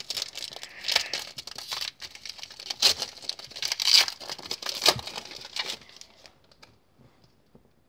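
Wrapper of a 2017 Panini Score football card pack being torn open and crinkled by hand, with several sharp rips. It stops about six seconds in.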